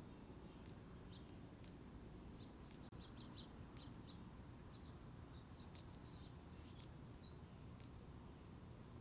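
Faint, high-pitched bird chirps in short scattered clusters, busiest about six seconds in, over a low steady background rumble.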